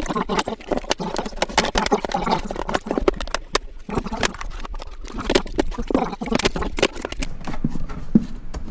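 Plastic snap clips of a Cooler Master Novatouch TKL keyboard case clicking and popping as a credit card pries the top and back halves apart along the seam. Many irregular rapid clicks and snaps.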